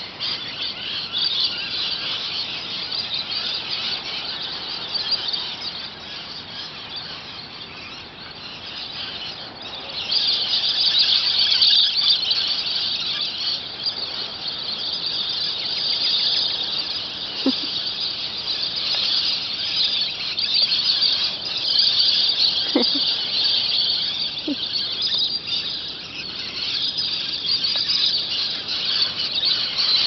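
A large flock of birds calling from the trees in a continuous high-pitched, screeching din, growing louder about ten seconds in.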